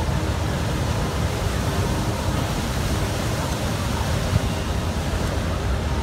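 Heavy surf breaking and washing over a rocky shore: a steady rushing noise, strongest in the low end.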